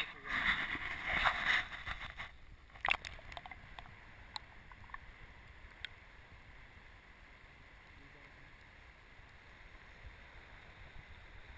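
River water splashing around an action camera for about two seconds, then a sudden drop to the muffled underwater sound of the current once the camera is submerged, with scattered faint clicks.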